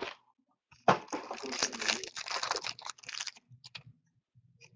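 A trading-card pack wrapper being torn open and crinkled by hand: a burst of crackling that starts sharply about a second in and lasts a couple of seconds, then a few light clicks.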